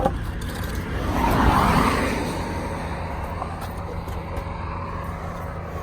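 Heavy truck diesel engine idling steadily, with a sharp click at the start and a short swell of hissing noise about one to two seconds in.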